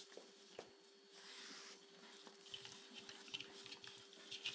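Near silence with a faint steady hum. Soft rustling and small clicks come from gloved hands handling the wound VAC tubing and the dressing on the foot, growing busier toward the end.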